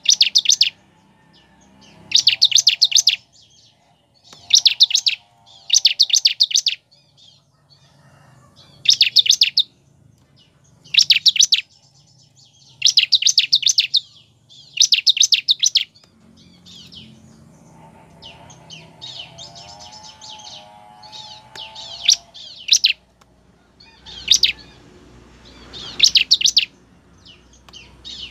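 Bar-winged prinia (ciblek) calling: short bursts of rapid, high, sharp chirps, each under a second, repeated every one to two seconds.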